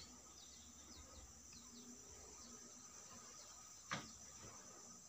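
Near silence with a faint, steady high drone of crickets or similar insects and a few faint short chirps; a single short knock sounds about four seconds in.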